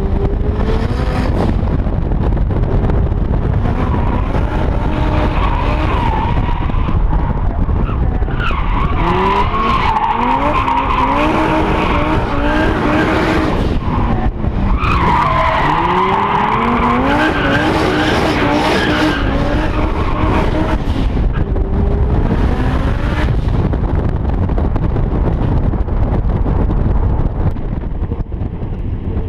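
Volvo 242's turbocharged five-cylinder T5 engine revving up and down hard, with the tyres squealing in long stretches as the car slides. The squeal is loudest in two spells, from about eight to thirteen seconds in and from about fifteen to twenty-one seconds in.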